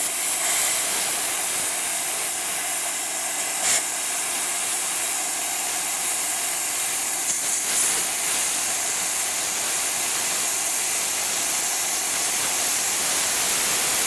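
Plasma cutter with a built-in air compressor cutting through thick steel: the arc and air jet give a steady hiss that starts abruptly. A brief click comes about four seconds in.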